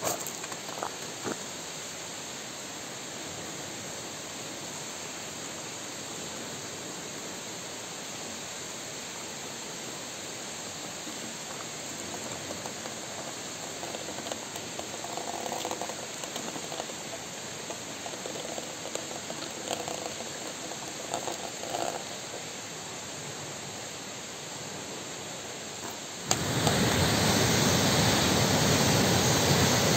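A steady hiss, then a sudden cut, about 26 seconds in, to the loud, steady rush of a stream pouring over a small concrete weir.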